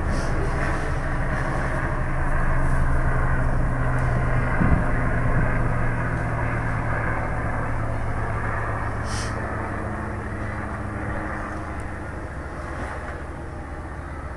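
Excavator's diesel engine running with a steady low hum. It grows louder about two seconds in and fades slowly over the second half. A single short knock comes near the middle.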